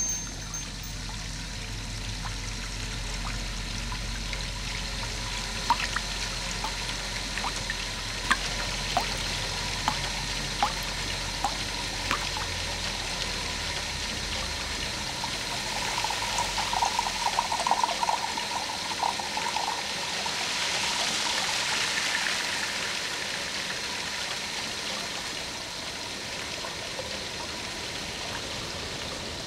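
Water running and trickling into a stainless steel pot holding an egg. A few light clicks come between about six and twelve seconds in, there is a short spell of bubbling a little later, and the water gets louder for a few seconds after that.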